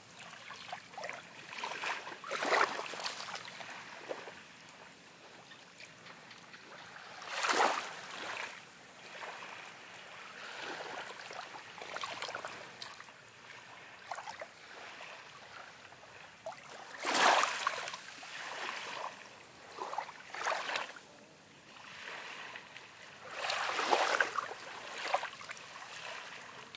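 Small waves washing up on a sandy shore, a gentle surge of water every few seconds with some louder than others, and lapping in between.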